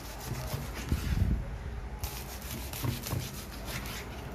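Crispy skin of a deep-fried pork knuckle crunching and crackling as a knife saws back and forth through it, in two runs of rapid rasping strokes, with a dull knock about a second in.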